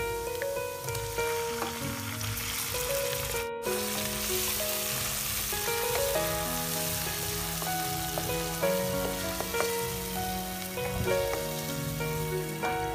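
Hot oil sizzling in a wok as chopped garlic and then raw chicken pieces fry, stirred with a wooden spatula, under background music. The sound cuts out for an instant about three and a half seconds in.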